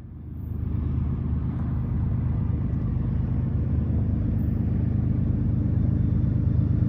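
Diesel locomotives of a BNSF coal train approaching, a steady low engine rumble that swells during the first second and then slowly grows louder.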